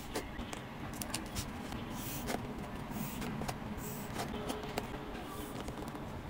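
Scattered small clicks and soft handling sounds of fingers squeezing and pressing squishy soft toys, over a steady low background hiss.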